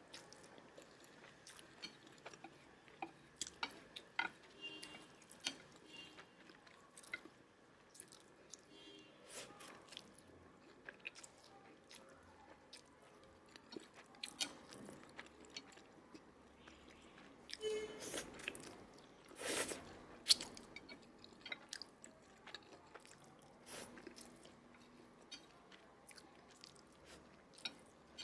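Close-miked chewing and wet mouth sounds of someone eating mixed noodles, with many small sharp clicks and a couple of longer, louder noises about two-thirds of the way through.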